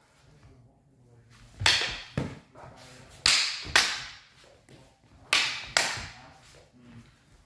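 Klewang blades clashing in cut-and-parry exchanges: six sharp strikes in three pairs, each pair about half a second apart, each ringing briefly.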